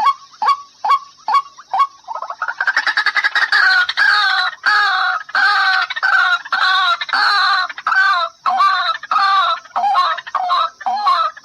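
White-breasted waterhen (ruak-ruak) calling: short single notes about twice a second, then from about two seconds in a quick run that builds into loud, repeated two-part calls, also about twice a second.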